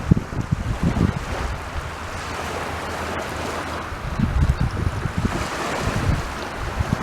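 Sea waves breaking and washing up a beach, a steady hiss of surf. Wind buffets the microphone in gusts at the very start and again from about four seconds in.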